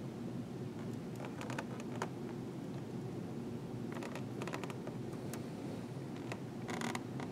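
Faint creaks and clicks of a rubber balloon squeezed under a hardback book against a bed of nails, coming in short crackly clusters about a second in, around four seconds and near the end, over a steady low hum.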